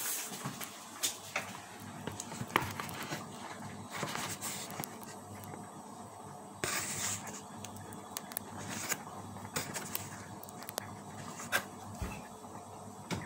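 Kitchen room tone: a low steady hum with scattered light clicks and knocks, and a brief hiss about seven seconds in.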